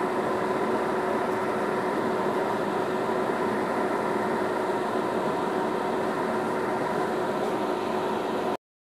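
Steady mechanical hum and rush of kitchen background noise over a simmering pot, with two faint steady tones running through it; it cuts off abruptly near the end.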